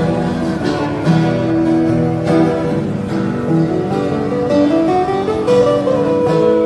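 Two guitars played together: an acoustic guitar strummed under a moving line of picked notes, amplified through a small speaker.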